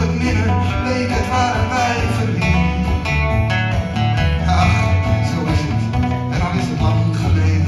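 Live acoustic band music: several acoustic guitars strumming and picking with a violin playing over them.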